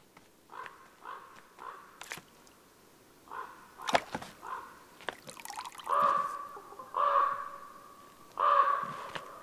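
A crow cawing repeatedly: a few short caws at first, then longer, louder caws in the second half. A sharp crack about four seconds in is the loudest single sound.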